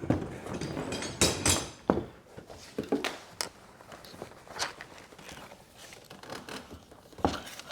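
Plastic sheeting rustling, then a scatter of sharp knocks and thumps as a steamed wooden frame is pulled out of a plastic-bag steam box and handled.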